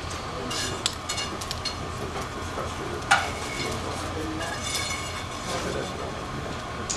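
Steady hum and hiss at a blacksmith's forge, with light metallic clinks as steel pieces and tools are handled in the fire; one sharper clink about three seconds in.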